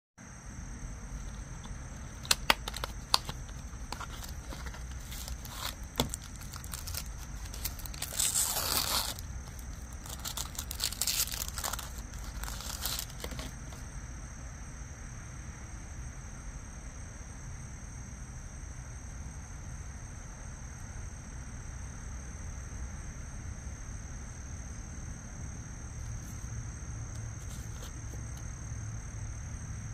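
A cardboard wallet box being opened and its packaging handled: a few sharp clicks about two to three seconds in, then rustling and crinkling, loudest around eight to thirteen seconds. After that only a steady low hum with a thin, constant high tone over it.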